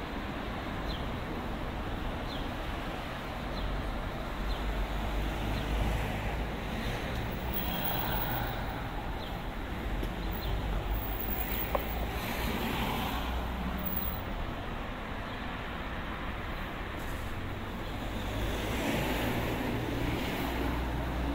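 Road traffic: a steady hum of cars on the adjacent street, swelling several times as vehicles pass.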